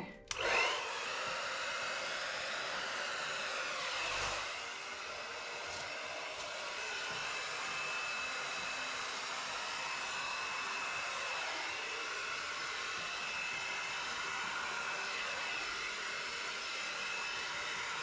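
Handheld hair dryer switched on about half a second in and blowing steadily: a rush of air with a thin, steady, high motor whine.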